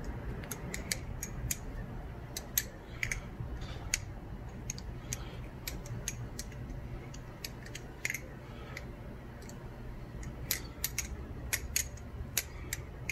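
Butterfly knife with solid titanium channel handles, zen pins and a kukri blade being flipped: irregular sharp metallic clicks, a few a second, as the handles swing round and strike the pins and close on the blade. A steady low hum runs underneath.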